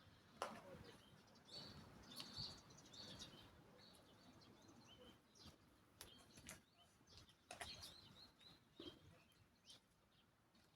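Faint, scattered short bird chirps over low background noise, with a few soft clicks.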